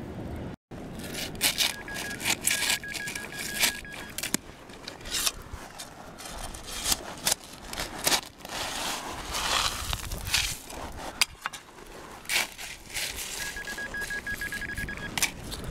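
A trowel digging into wet sand and shingle, with repeated scrapes and the crunch and clatter of pebbles. A handheld metal-detecting pinpointer beeps rapidly in two spells, about a second in and again near the end, signalling metal in the hole.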